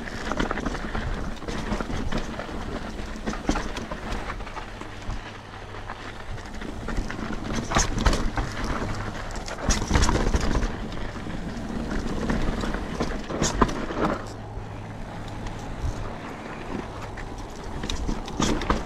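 Mountain bike riding down a rough dirt and rock trail: tyre and trail noise with the bike clattering over bumps, several sharp knocks standing out about eight, ten and thirteen seconds in, and wind on the microphone.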